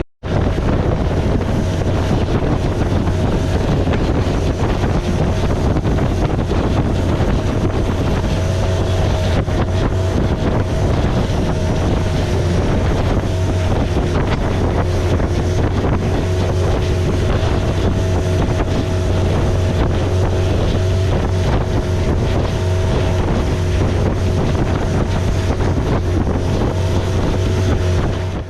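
Thai long-tail boat's engine running steadily at cruising speed, heard from aboard, with its low hum and a steady drone over the rush of wind and water.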